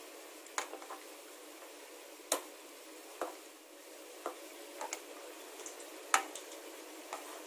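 Raw chicken being mixed by hand into a curd and spice marinade in a bowl: soft squelching with a few sharp clicks of fingers against the bowl, the loudest about two seconds and six seconds in.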